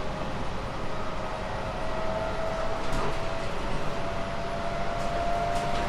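JR 719 series electric multiple unit running, heard from inside the car: a steady rumble of wheels on rail under a faint whine that rises slowly in pitch as the train speeds up, with a few short clicks.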